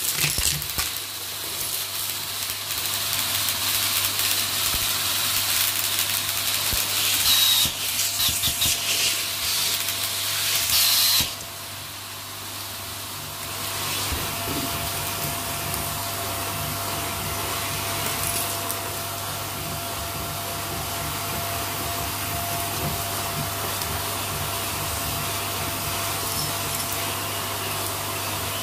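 Vacuum cleaner running with a floor tool on the hose, sucking star confetti and small debris off a carpet. For the first eleven seconds or so, bits crunch and crackle up the hose. Then it drops suddenly to a steadier, quieter suction hum with a constant whine.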